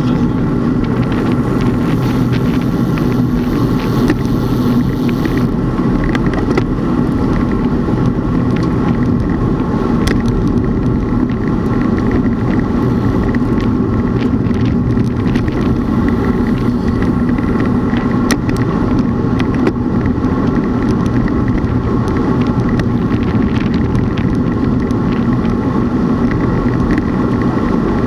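Steady running noise of a moving vehicle on the road: an unbroken hum with a rumble of road and wind noise underneath, even in level throughout.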